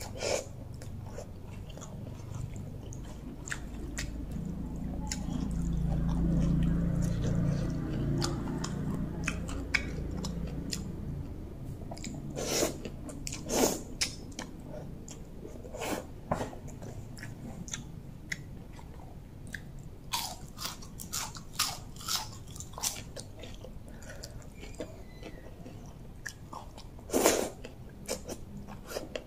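Close-up eating sounds: rice noodles being slurped and chewed, with wet smacking mouth clicks throughout and a few louder slurps about halfway and near the end. A low rumble swells and fades in the first third.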